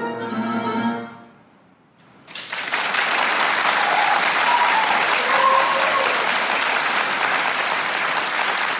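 The last chord of a chromatic harmonica (Hohner Super 64) with piano, held for about a second and dying away. About two seconds in, an audience breaks into steady applause, the loudest sound here.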